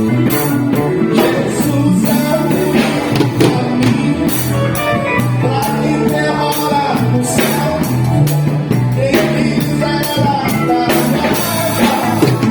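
Band playing a baião-style Christian rock song: drum kit, bass guitar, guitars and keyboards, with a steady beat and a moving bass line.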